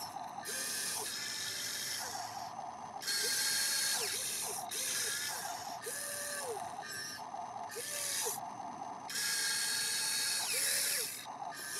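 Huina radio-controlled toy excavator's electric motors and gears whirring in short stop-start spells as the arm and bucket dig. Each movement spins up with a brief rising tone and winds down with a falling one, several times over.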